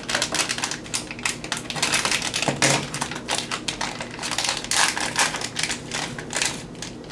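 Shiny blind-bag packet crinkling and crackling as it is handled and opened by hand: a dense run of sharp crackles.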